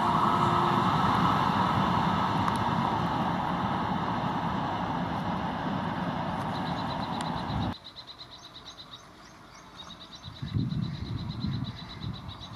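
An LHB passenger train's coaches run away with a steady rumble and clatter that slowly fades, then stops abruptly about eight seconds in. After that comes a high, rapid, rhythmic chirping and a low rumble that swells as an electric train hauled by a WAP-7 locomotive approaches.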